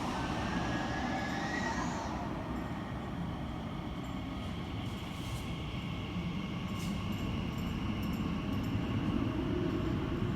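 Crossrail (Elizabeth line) train at an underground platform. A thin electric whine rises over the first two seconds, then gives way to a steady rumble.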